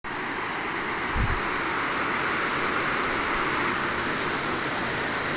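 River water rushing steadily over a low weir, with a brief low thump about a second in.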